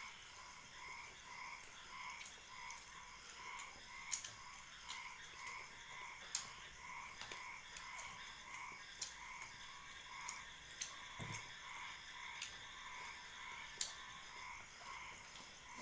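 An animal calling in the background with a steady pulsed call, about two pulses a second, over occasional sharp clicks and taps from eating off steel plates, with one low thud about eleven seconds in.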